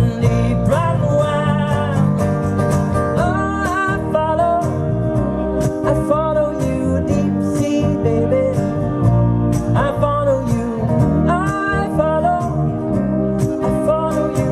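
Live acoustic guitar music: steel-string acoustic guitars strummed steadily, with a wavering melody line carried over them.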